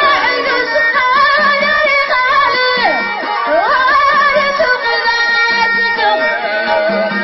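A woman singing an Amazigh folk song into a microphone, accompanied by a violin played upright on the knee; the melody is ornamented and wavering, with a few sliding notes.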